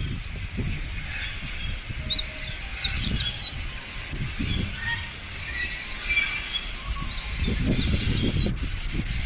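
Wind buffeting the microphone in uneven low gusts, with birds chirping in the background, including a cluster of quick chirps about two to three seconds in.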